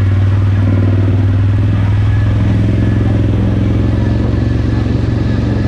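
CFMoto CForce 800 ATV's V-twin engine running steadily under load as it climbs a rough, rocky trail, heard from on board the machine.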